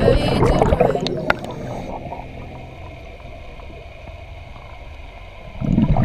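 Underwater audio of a diver's air bubbling past the microphone: a loud gurgling burst at the start and another shortly before the end, with a quieter steady underwater hiss between.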